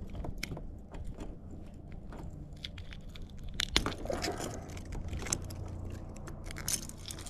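Fish stringer being handled, with scattered clicks, clinks and rustling over a low steady rumble.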